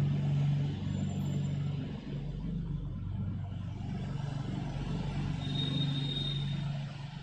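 A steady, low engine-like rumble with a droning hum.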